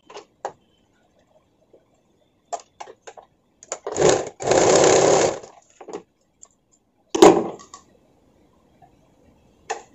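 Domestic electric sewing machine running for about a second and a half, stitching a short tuck in a blouse panel. Around it are light clicks and rustles of the fabric being handled, and a sharp click a few seconds later.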